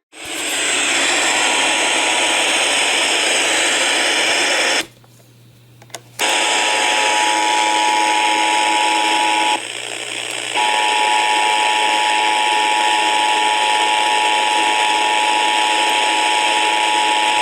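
Loud radio static hiss carrying a steady two-tone alert signal, the Emergency Alert System attention tone, which comes in about six seconds in. The hiss drops out briefly just before the tone starts, and the tone breaks off for about a second near ten seconds.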